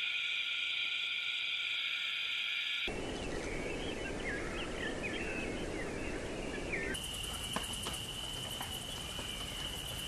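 Nature ambience in three abrupt sections. First a steady high insect drone, then from about three seconds in short, quick bird chirps over a background hiss, and from about seven seconds a steady high insect trill with a few faint clicks.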